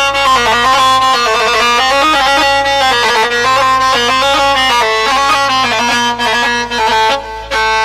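Instrumental Arab folk music: a reedy, ornamented wind-like melody over a steady low drone.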